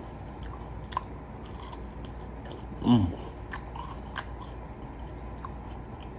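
A person chewing food with scattered soft mouth clicks, and a short voiced hum with falling pitch about three seconds in.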